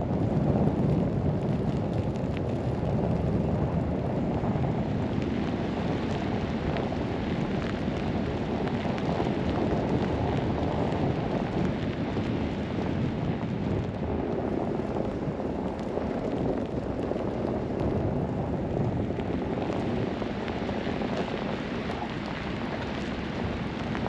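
Blizzard wind buffeting the microphone: a steady, low rushing noise with no distinct events.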